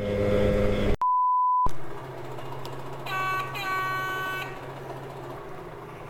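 Simson Schwalbe moped's small two-stroke engine running for about a second, then cut off by a censor bleep: a single steady high beep lasting under a second. After it comes a quieter steady low hum, with two short pitched tones a few seconds in.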